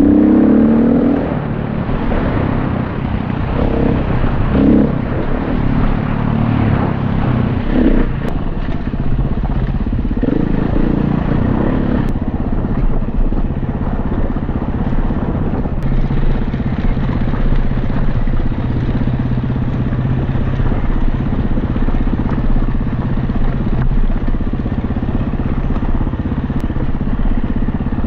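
Dirt bike engine running while riding a trail, its pitch rising and falling with the throttle over the first dozen seconds, then holding steadier.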